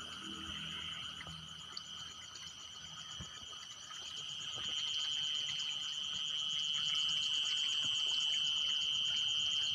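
Night chorus of crickets or similar insects: a steady high-pitched trill with a fast pulsing above it, swelling louder about halfway through. A few faint clicks sound underneath.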